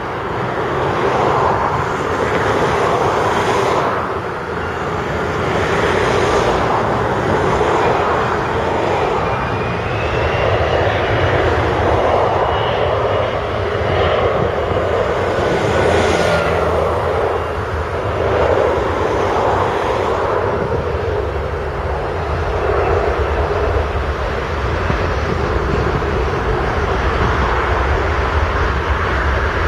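Diesel engines of a Volvo crawler excavator and Volvo articulated dump trucks running steadily under load as the excavator digs and loads. A faint whine rises and falls about halfway through.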